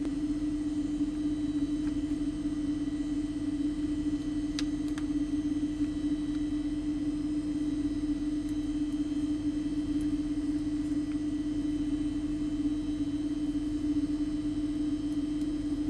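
A steady low hum at one pitch with overtones, unchanged throughout, with two faint clicks about four and a half seconds in.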